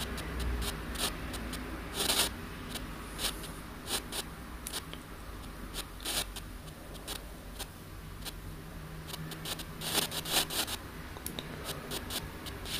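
Handheld radio-sweep spirit box (ANC-Mini) running: a low hiss broken by short, irregular crackles and bursts of static as it sweeps through stations.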